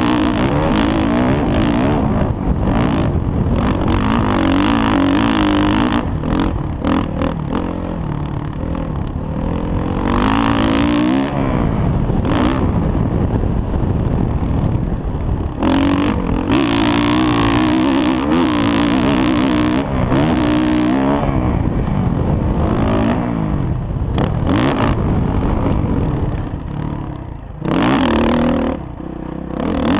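Dirt bike engine revving hard, its pitch rising and falling with the throttle and gear changes, heard from a camera mounted on the bike. Near the end the engine note drops away sharply twice.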